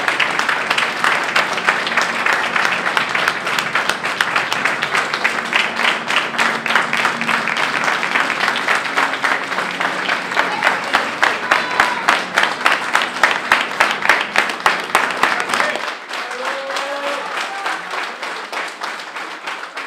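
A crowd of people applauding, a dense patter of many hands clapping with some voices mixed in. Near the end the applause cuts off suddenly.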